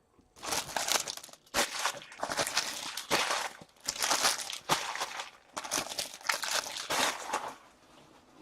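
Foil and plastic trading-card packaging crinkling and being crumpled in bursts for about seven seconds. The sound is typical of empty pack wrappers being gathered up between boxes.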